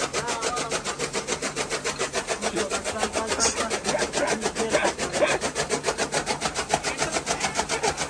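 Fodder chaff cutter (toka machine) running with its flywheel spinning, a steady fast beat of about six strokes a second as green fodder is chopped.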